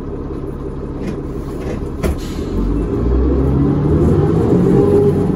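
Cummins ISL inline-six diesel of a New Flyer D40LF transit bus, heard from inside the cabin, running at idle. A single thump about two seconds in, then the engine grows louder with a slowly rising pitch as the bus pulls away.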